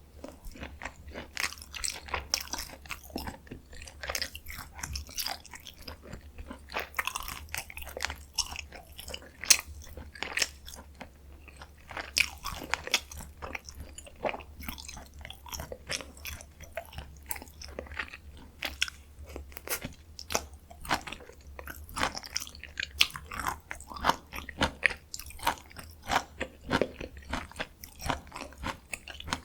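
Close-miked chewing and biting of spicy stir-fried chicken (dakgalbi): wet mouth sounds with frequent crunchy, clicky bites, steady and irregular with no pauses longer than a moment.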